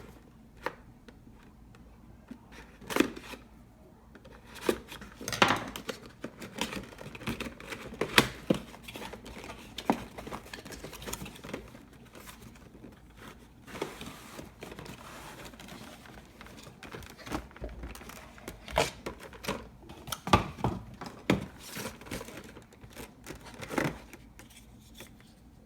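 Packaging of a GoPro Jaws clamp mount being opened by hand: irregular tearing and crinkling, with scattered sharp clicks and knocks of the parts being handled.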